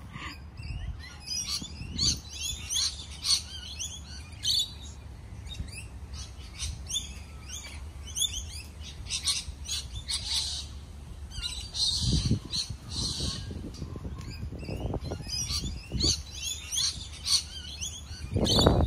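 Small birds chirping and calling, many short rising and falling chirps throughout, over a steady low rumble.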